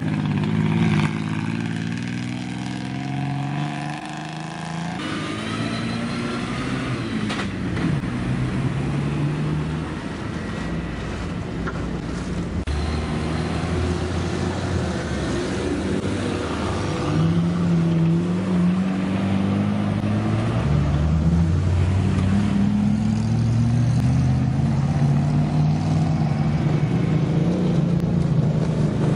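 Off-road 4x4 vehicle engines running and revving, their pitch rising and falling several times as they pull away.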